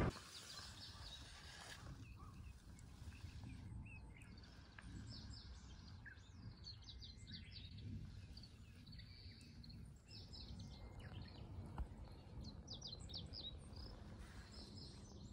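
Faint outdoor ambience: small birds chirping in short repeated calls over a low, steady background noise.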